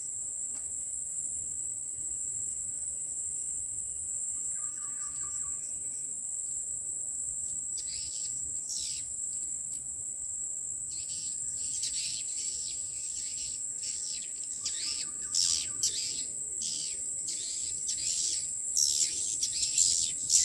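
A flock of swiftlets twittering in many short, high chirps that begin about a third of the way in and grow denser and louder toward the end, over a steady high-pitched insect buzz.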